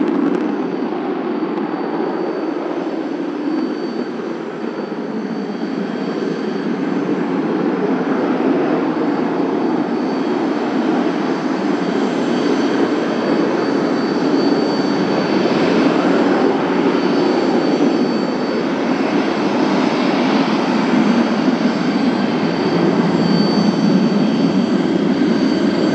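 B-1B Lancer bomber's four afterburning turbofan engines at full afterburner as it climbs away after take-off: a steady, loud jet roar, growing slightly louder after the first few seconds, with a faint steady high whine.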